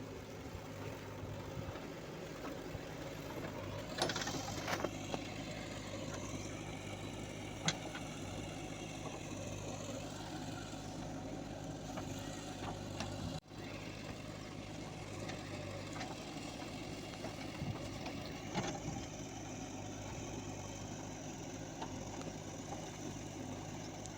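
JCB 3DX backhoe loader's diesel engine running steadily, with a few light clicks over it.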